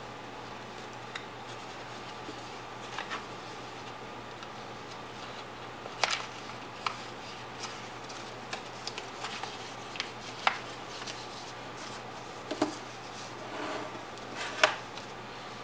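A sheet of paper being folded and creased by hand: soft rustling with scattered sharp paper crackles, the loudest about six seconds in and again near the end. A steady faint hiss and hum sits underneath.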